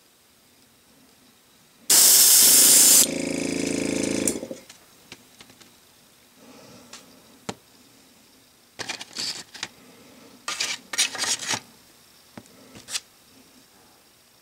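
Airbrush and compressor air: a loud blast of hissing air for about a second, then a shorter, lower pitched hum that cuts off. Several brief hissy spurts follow near the end, as the airbrush trigger is worked to spray paint.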